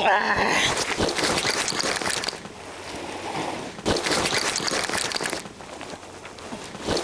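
Fishing reel being cranked in two bursts, about two seconds and a second and a half long, retrieving line with a rock bream on the hook.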